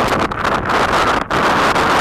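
Strong storm wind buffeting an action camera's microphone: a loud, continuous rushing noise that dips briefly twice as the gusts ease.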